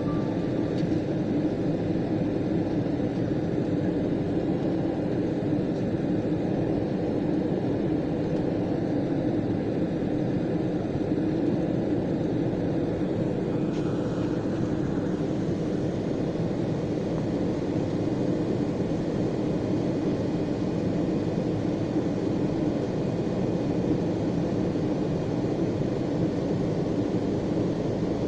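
Steady airliner cabin noise of the engines and rushing air, heard from inside the cabin during the descent to land.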